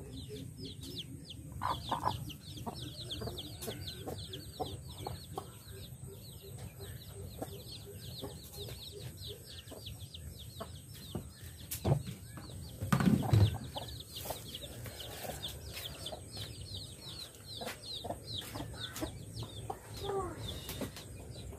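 Chickens: a hen clucking low near the start over a constant stream of rapid, high, falling peeps from chicks, with a few dull thumps about halfway through.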